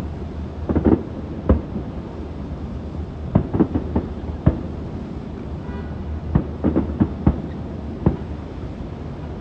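Distant aerial fireworks bursting: about a dozen irregular booms and cracks, several in quick clusters, over a steady low rumble.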